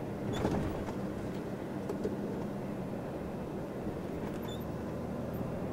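Iveco truck's diesel engine running under way, heard from inside the cab as a steady low hum with road noise and a couple of faint clicks.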